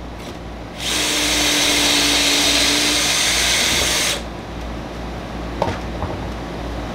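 Cordless drill running a stepped pocket-hole bit into a board held in a Kreg pocket hole jig: a steady drilling run of about three seconds, starting about a second in and stopping suddenly. A couple of light knocks follow near the end.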